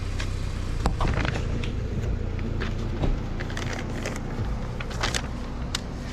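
A vehicle engine running steadily at low revs, with scattered sharp clicks and rattles.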